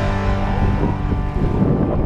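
Wind buffeting the microphone and water slapping against a small boat, with the last held chord of a background song running under it and stopping about a second and a half in.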